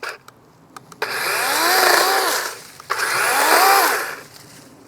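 DeWalt 20V Max XR brushless cordless chainsaw run up twice in short bursts, the motor and chain whine rising in pitch and then winding down each time, after a few light clicks.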